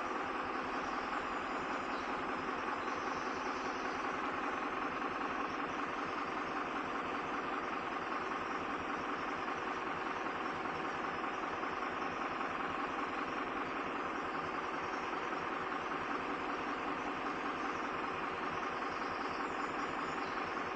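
A steady machine drone, like a motor or engine running, holding an even level and pitch throughout.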